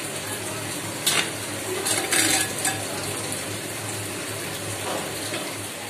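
Sliced onions sizzling steadily in hot oil in a small kadai as they fry for beresta, with a metal spatula scraping and knocking against the pan about a second in and again around two seconds in.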